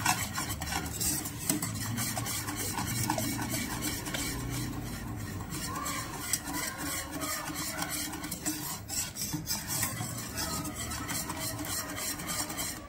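Metal spoon stirring thick harira soup in a pot without pause, scraping and tapping against the pot in quick, continuous strokes. The constant stirring keeps the added starch from clumping as the soup thickens.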